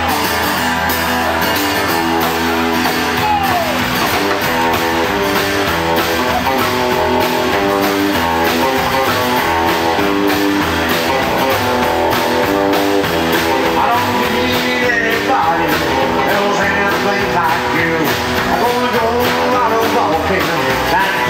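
Live rock and roll band playing: semi-hollow electric guitar and strummed acoustic guitar over upright double bass and a drum kit keeping a steady beat.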